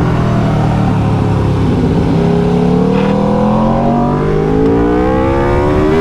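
Sport motorcycle engine heard from the saddle: the revs drop off for about two seconds, then climb steadily as it accelerates out of a bend.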